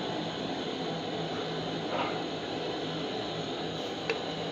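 Steady low machine hum with an even hiss, like a kitchen appliance running. There is a faint light clink about four seconds in.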